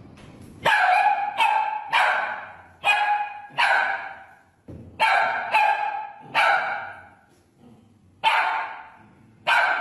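Small curly-coated dog barking: about ten high-pitched barks in ones and twos, each fading with a short echo of the room, with a pause of about a second late on.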